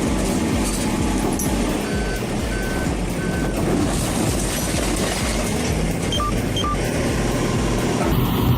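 Heavy machinery engine running steadily while a backup alarm beeps: three short beeps, then two more at a lower pitch a few seconds later.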